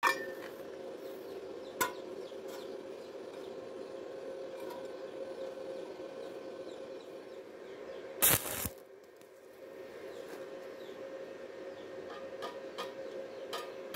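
Arc welding machine idling with a steady electrical hum, with a few light clicks and a brief loud noise about eight seconds in.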